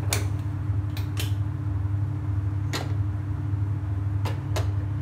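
Kitchen handling sounds at a gas stove: a handful of short sharp clicks and clinks from a steel pot and ladle being moved, and a red spark gas lighter being used, over a steady low hum.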